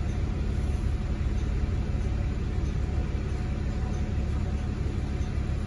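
Steady low rumble inside the passenger cabin of a 2018 Nova Bus LFS hybrid-electric city bus, from its Cummins B6.7 diesel and BAE Systems HybriDrive electric drivetrain, with no distinct events.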